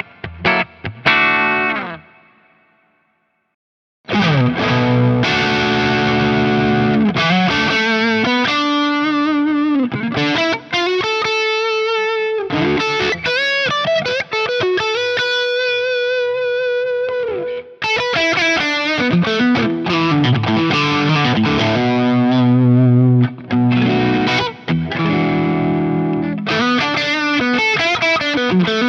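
Soloking MT-1 T-style electric guitar with Wilkinson Alnico pickups, played with a distorted tone: lead lines with sustained notes, string bends and vibrato. The playing breaks off about two seconds in, stops for about two seconds, then resumes and carries on.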